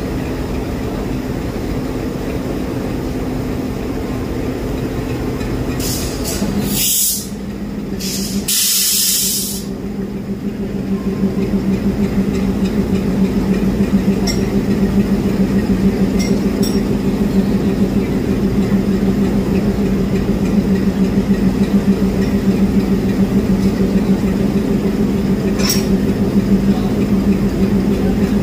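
Diesel locomotive engine idling with a steady hum, broken about six and eight seconds in by two loud bursts of hissing air from the brake system. From about ten seconds in the engine note grows louder and throbs steadily, with a few faint metallic clicks.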